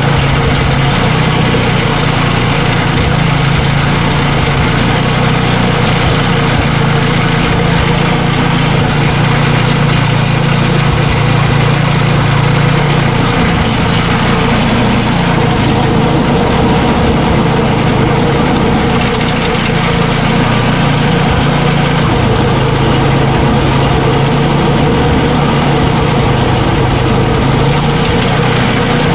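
Ariens ST824 snow blower's small gas engine running steadily, just after new belts have been fitted, to test that the drive engages. Its note eases slightly a little past the middle, then settles back.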